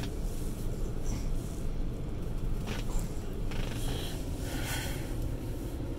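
Low steady rumble of tyres and cabin noise inside a 2013 Tesla Model S 85 as it backs up slowly, with a few faint rustles.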